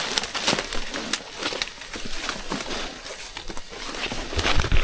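Footsteps crunching and rustling through leaf litter and undergrowth, with irregular sharp crackles of twigs and leaves, and a low rumble near the end.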